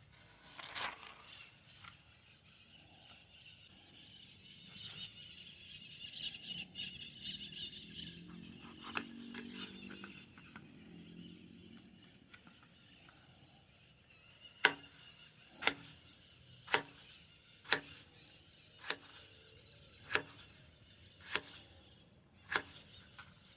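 A series of sharp knocks, about one a second, starting a little past the middle, over faint outdoor background sound.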